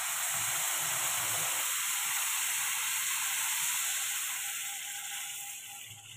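Water poured into a pan of hot ghee-roasted semolina and sugar, sizzling and hissing steadily as it hits the hot fat and turns to steam; the hiss dies down near the end. This is the stage in making sooji halwa where the water goes in.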